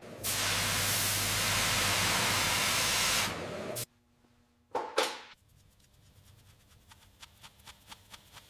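A steady spraying hiss for about three seconds, then a brief pause, two short swooshing sounds and faint ticking.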